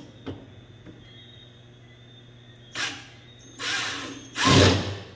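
Cordless drill boring into plywood in three short bursts, the last the longest and loudest, after a couple of light clicks as the bit is set in place.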